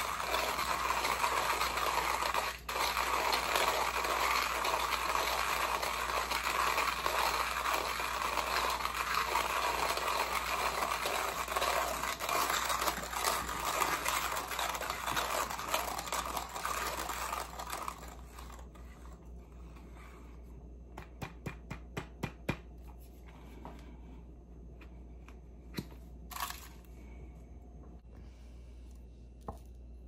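Heihox hand coffee grinder's steel burrs grinding whole coffee beans on the coarsest setting as the crank is turned: a dense, steady crunching that stops after about 18 seconds. A quick run of light clicks and a few taps follow.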